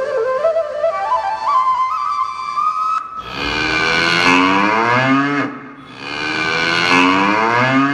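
Recorded backing track for a mime act: a flute-like melody stepping upward for about three seconds, then two long, deep cries with falling pitch, each about two seconds, with a short break between them.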